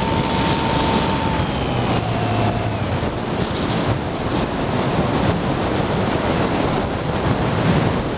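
Onboard sound of an RC FPV plane in flight: wind rushing over the camera microphone, with the motor's steady tone dropping in pitch and cutting out about three seconds in as the throttle comes off. Wind noise only after that.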